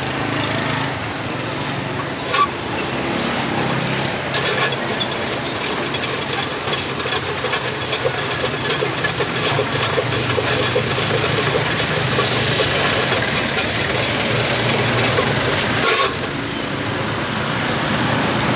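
Busy street traffic: motor vehicles passing steadily, with a horn toot and scattered clicks and knocks.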